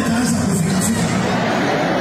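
Live music with a voice singing held, wavering notes, and a crowd's voices behind it.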